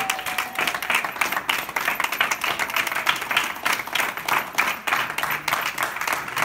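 Small group of people applauding, a dense, steady patter of hand claps.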